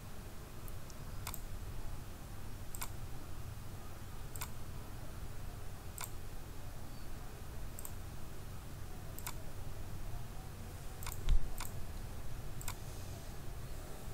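Computer mouse clicking, single clicks about one and a half seconds apart, over a steady low electrical hum. A louder low thump comes about eleven seconds in.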